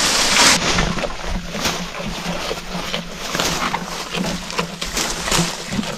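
Leafy fodder branches rustling and snapping as they are tossed over a wooden rail, with a loud rustle at the start, then irregular crackles of twigs and leaves as a goat pulls at them and eats.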